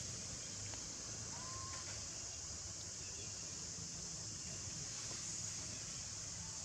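Steady high-pitched insect drone over a low rumble, with one short faint call about a second and a half in.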